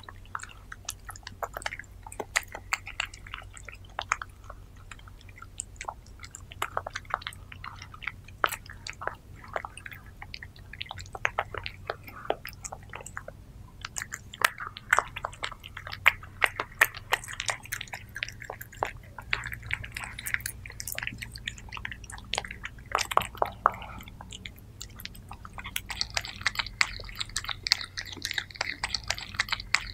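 Two cats eating raw minced meat from a wooden board, close-miked: wet chewing, smacking and licking in quick, irregular clicks that get busier near the end, over a steady low hum.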